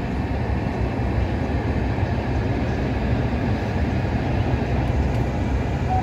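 Steady low rumble of a car driving, engine and road noise heard from inside the cabin.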